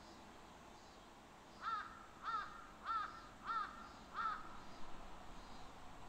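A crow cawing five times in a steady series, about two calls a second, over a faint steady hiss of forest ambience.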